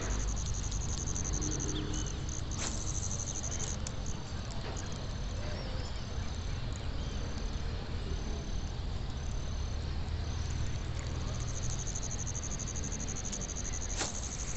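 Insects trilling in a high, thin, steady band that for several seconds in the middle breaks into slow, even pulses, then runs steady again, over a low rumble. A sharp click sounds near the start and another near the end.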